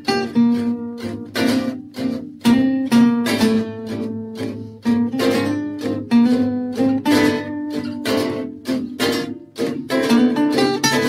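Background music of a strummed acoustic guitar, chords struck in a steady rhythm.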